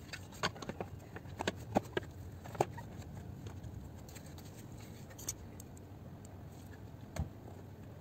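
Plastic seat trim panel being handled and pressed onto a car seat's metal frame: a quick run of light clicks and taps in the first few seconds, then two single knocks further on.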